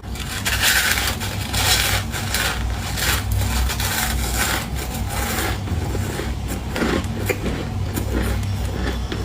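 Ice being bitten and chewed close to the microphone: a dense run of crunching and grinding, over a steady low hum.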